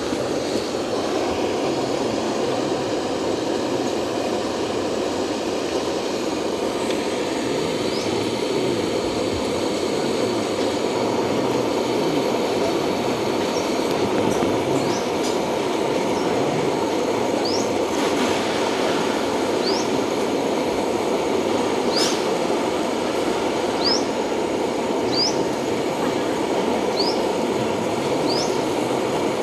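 Steady rushing of a waterfall stream. Over it, a bird gives short rising chirps, at first now and then and later every second or two.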